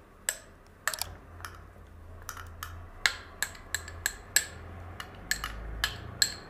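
Metal bar spoon scraping and tapping mango purée out of a small glass bowl into a stainless-steel cocktail shaker: an irregular run of sharp clinks, a few a second.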